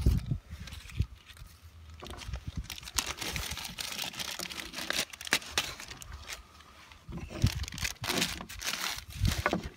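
Clear plastic bag crinkling and rustling in the hands as it is handled and a birch-bark-covered tube is worked in and out of it, with a few low knocks.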